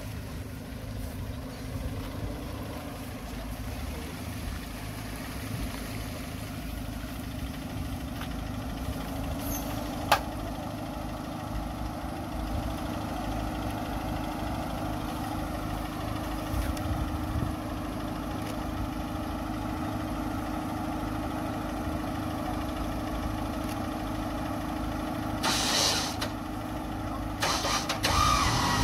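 Off-road 4x4's engine idling steadily, with a single sharp click about ten seconds in and brief hissing bursts near the end.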